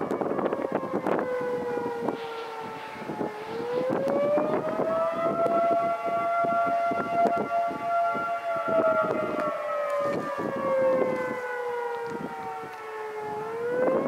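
Federal Signal 2T22 dual-tone outdoor warning siren sounding the attack signal: its chord falls in pitch for about three seconds, rises, holds about four seconds, then falls again and starts rising near the end. Wind buffets the microphone throughout.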